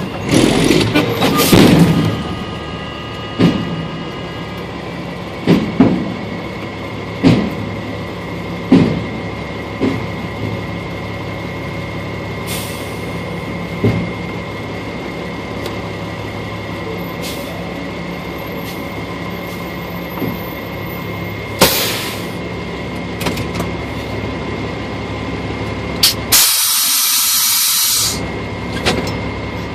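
Truck engine running at low speed, heard from inside the cab, with knocks and rattles at uneven intervals as it rolls over a rough gravel drive. A loud hiss lasting about a second and a half comes near the end.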